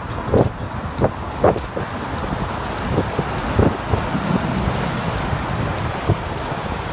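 Road traffic on a town street: a steady rush of cars passing, with wind rumbling on the microphone.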